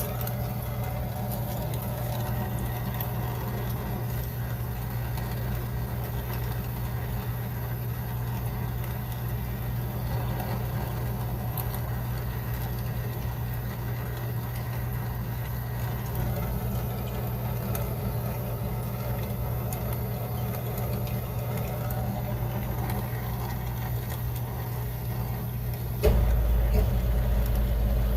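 Steady low machine hum, joined about two seconds before the end by a louder, deeper rumble that comes in suddenly.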